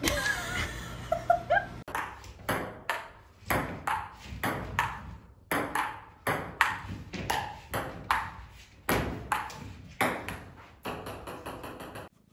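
Ping-pong ball bouncing on a table-tennis table in a quick run of sharp clicks, irregularly two to three a second, starting about two seconds in.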